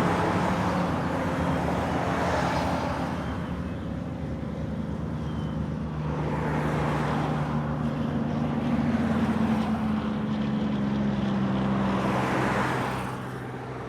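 Road traffic: vehicles passing one after another, each a swell of engine and tyre noise that rises and fades, about four in all, over a low steady hum.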